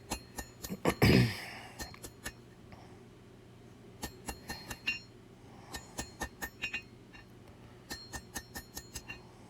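Blacksmith's hammer striking hot steel on an anvil in short runs of quick, ringing blows with brief pauses between, drawing out the tapered point of a double-edged blade. One heavier blow lands about a second in.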